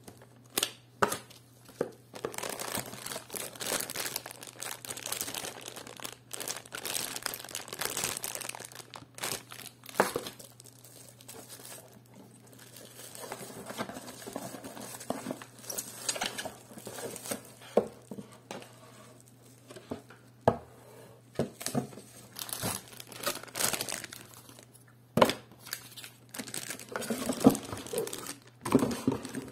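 Unboxing rustles: hands handle a paper instruction leaflet, then crinkle the bubble wrap and a plastic bag around a computer power supply in its cardboard box. Irregular crackling and rustling with scattered sharp clicks and taps, over a faint steady low hum.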